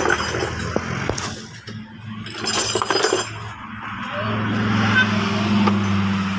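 The 2005 Toyota Prius's 1.5-litre four-cylinder petrol engine running with the hood open, a steady hum that grows louder from about four seconds in. A few light knocks and some rustling in the first three seconds.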